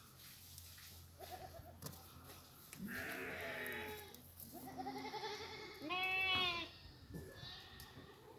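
Goats bleating: several separate quavering bleats one after another, the loudest about six seconds in.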